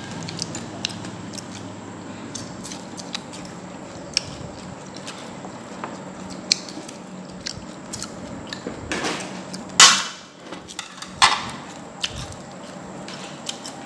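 Table sounds of a family meal: chopsticks and spoons clicking against ceramic bowls and a metal tray, with chewing of crisp fried small fish, over a low steady hum. There are two louder clatters about ten and eleven seconds in.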